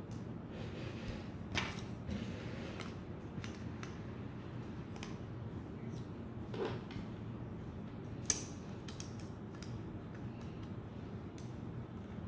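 Handling noise from a barcode scanner stand being put together: scattered small clicks and scrapes of plastic and metal parts as the gooseneck is worked into the holder, the sharpest clicks about a second and a half in and about eight seconds in, over a low steady room hum.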